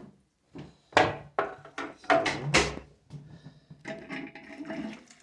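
A series of sharp knocks and clunks, about four loud ones in the first three seconds, then softer clatter and rustling: hard objects being handled and set down, like a door or drawer being worked.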